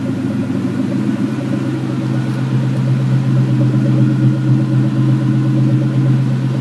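Two 2003 Mustang Cobras' supercharged 4.6-litre V8s idling together, a steady low exhaust burble; one breathes through a Magnaflow exhaust with an SLP X-pipe, the other through a Bassani exhaust.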